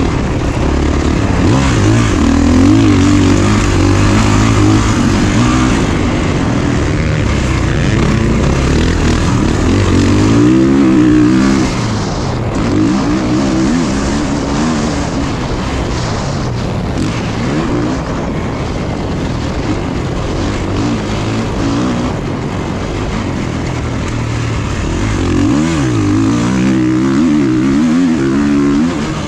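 2022 Kawasaki KX450's single-cylinder four-stroke engine revving hard on and off the throttle through a motocross race lap, heard from a camera mounted on the bike. Its pitch climbs and falls again and again as the rider accelerates, shifts and backs off for corners.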